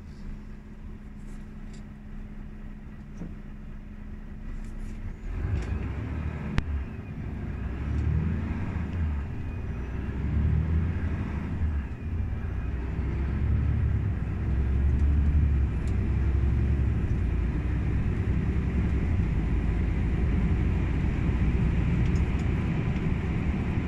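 Volvo FH 540 truck's 13-litre straight-six diesel, heard inside the cab: steady idle for about five seconds, then pulling hard as the truck accelerates from a standstill, growing louder as it shifts up through the gears of its dual-clutch gearbox.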